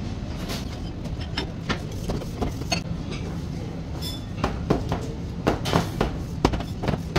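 Scattered knocks and clatter of a metal springform pan and spatula against a stainless-steel work table, coming thicker in the second half, over a steady low rumble.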